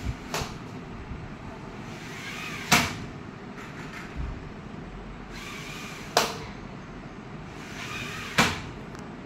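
Pleated sliding mosquito-net screen being drawn across a window frame: a short swishing slide, then a sharp click as it meets the frame, about four times.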